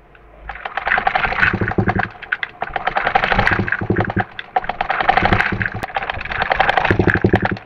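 Bajaj household sewing machine with a round bobbin hook running, its needle bar and hook making a rapid, even clatter of clicks. It picks up speed in the first second, then swells and eases a few times. The machine has just been oiled at the hook and needle bar, and it runs with a changed sound after the oiling.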